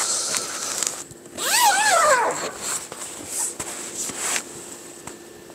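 Fabric rustling as a sleeping bag is handled, and a brief high whining cry that rises and then falls about a second and a half in.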